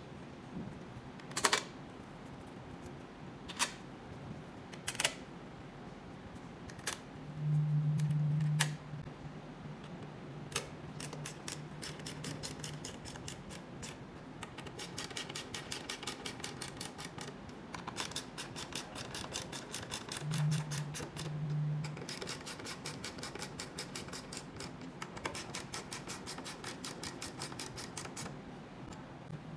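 A socket wrench turned by hand on bolts at the motorcycle's fuel-tank top: a few sharp metallic clicks, then long runs of rapid, even ticking. A brief low hum comes in twice.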